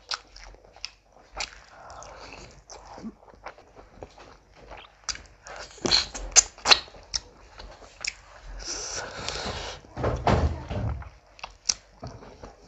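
Close-miked hand-eating sounds: fingers squishing basmati rice into curry gravy, then wet lip smacks and chewing of a handful of rice and curry. There are many sharp smacks and clicks, loudest about six seconds in, and a duller, deeper patch near ten seconds in.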